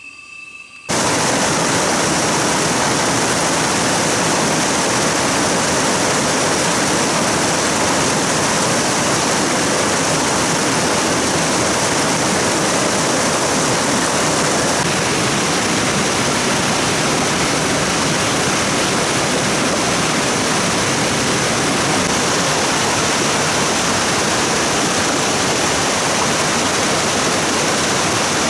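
Fast-flowing stream water rushing: a loud, steady, even rush that starts abruptly about a second in.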